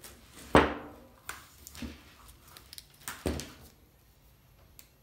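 Hand tools knocking on a plywood workbench: two sharp knocks, the first about half a second in and the loudest, the second about three seconds in, with small handling clicks between them.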